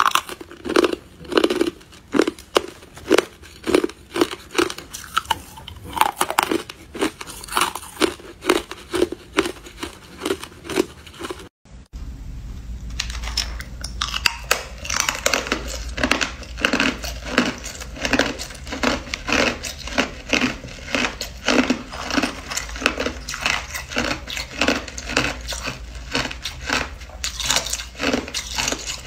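A person biting and chewing hard ice, with crisp crunches following one another several times a second. Briefly cut off about a dozen seconds in, after which a steady low hum sits under the crunching.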